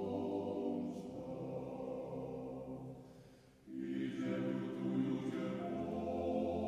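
A choir singing a slow chant. One phrase dies away a little past halfway and the next phrase begins.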